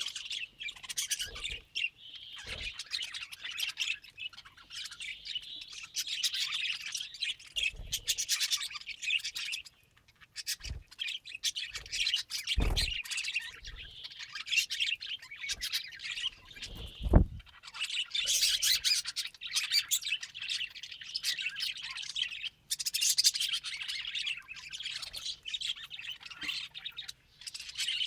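Budgerigars chirping and warbling in a steady, busy chatter. A few knocks break in, the loudest a little past halfway.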